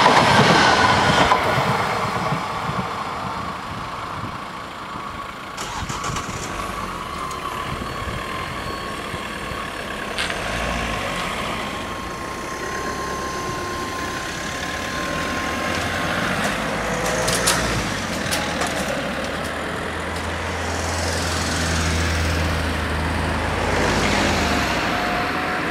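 The end of a passing regional train fades out over the first couple of seconds. The level-crossing barriers then go up, with a few clicks and a thin steady whine. From about two-thirds of the way in, car engines and tyres grow louder as cars drive over the crossing.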